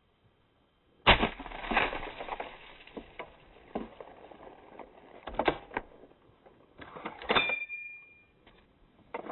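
Two rifle shots from a custom hunting rifle, the first about a second in and the second about four seconds later, with smaller knocks and thuds between them. This is a 'double tap' on a bison, and both shots hit.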